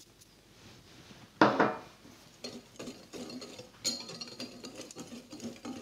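A single clink about a second and a half in, then a stainless wire whisk scraping and tapping irregularly against a glass mixing bowl as dry flour is stirred.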